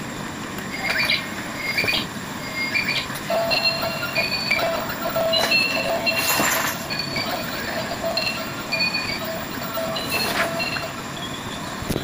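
Battery-powered toy parrot playing a string of short, high electronic beeps at a few set pitches, about two or three a second. Two brief scrapes of the toy being handled come partway through.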